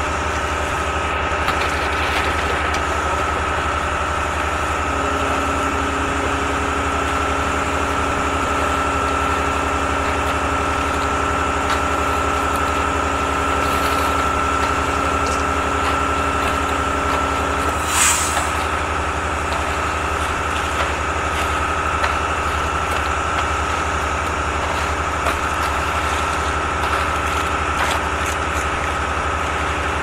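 An engine running steadily at a constant speed throughout, with one short knock a little past halfway.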